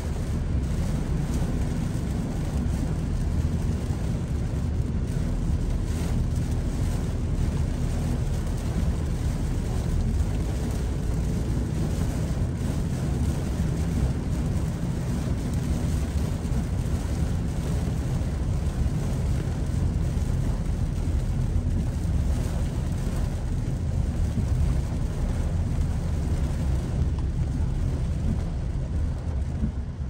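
Heavy typhoon rain on a moving car, mixed with tyre noise on the flooded road, making a steady, dense low rumble with a hiss above it.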